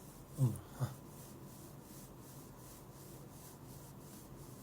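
A hand rubbing in quick, even strokes, about three a second, as a self-massage demonstrated to ease a cough. Two brief voice sounds come about half a second in.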